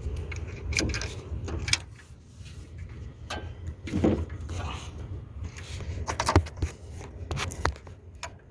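Metal hand tools clinking and knocking against engine parts, a few irregular sharp clicks, while a socket wrench works a tight EGR valve bolt loose.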